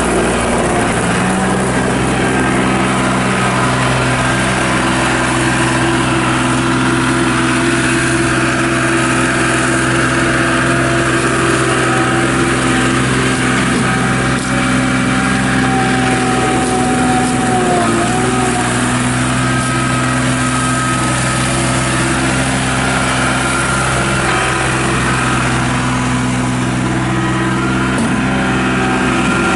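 John Deere 240 Series II skid steer loader's diesel engine running steadily, with a thin whine that rises and dips about halfway through.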